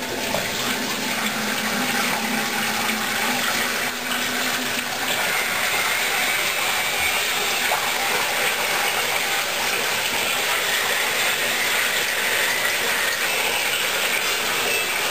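Bathroom sink faucet left running, water streaming steadily into the basin.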